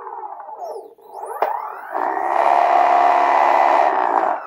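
Electric skateboard hub motors driven by a VESC controller in BLDC mode, whining with a harsh electronic buzz as they spin: the pitch falls as they wind down in the first second, rises as they spin up again, holds steady and loud for about two seconds, then falls away near the end. BLDC mode makes the hub motors noisier than FOC.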